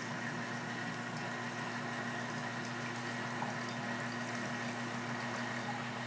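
Profitec Drive espresso machine's pump running steadily, with a constant hum, as water flows out into a measuring container to flush a newly installed water filter cartridge.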